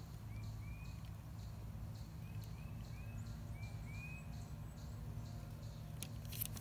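Quiet background with a steady low hum and a few short, faint high chirps, like a small bird's, in the first few seconds. A couple of light clicks come near the end.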